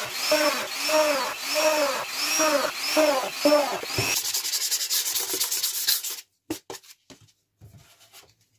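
Back of a plywood sheet being sanded by hand in back-and-forth strokes, about two a second, each stroke rising and falling in pitch. The strokes quicken, stop about six seconds in, and are followed by a few light knocks as the board is handled.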